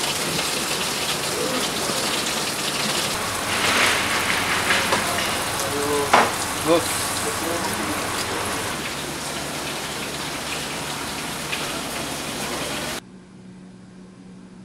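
Steady rush of running water, with a few brief knocks and short tones near the middle. It cuts off abruptly near the end, leaving quiet room tone with a faint low hum.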